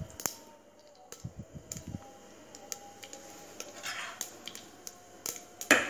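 Mustard seeds and spices spluttering in hot oil in a clay pot during tempering: irregular sharp ticks and small pops, with a louder burst of crackling near the end.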